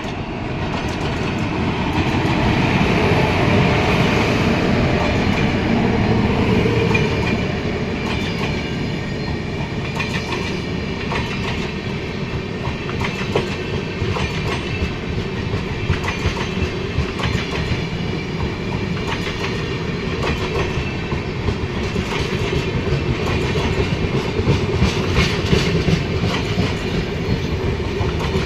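Passenger train passing at speed: a steady rolling rumble, loudest a few seconds in, with the wheels clattering over rail joints in a run of quick clicks that grows sharper near the end.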